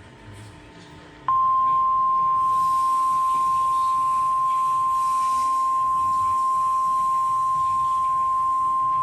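NOAA Weather Radio 1050 Hz warning alarm tone: a single steady, loud pure tone that switches on suddenly about a second in, after faint hiss. It signals that a warning broadcast, here a severe thunderstorm warning, is about to follow.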